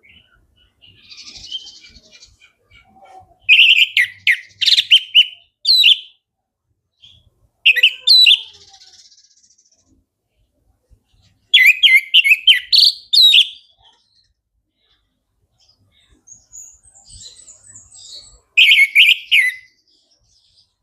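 Orange-headed thrush singing loudly in four separate bursts of quick, varied, high notes, with soft twittering between the bursts.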